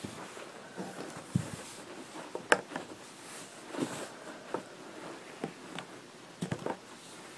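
Scattered light knocks and taps from building materials being handled and set in place, the sharpest about two and a half seconds in and a few more close together near the end.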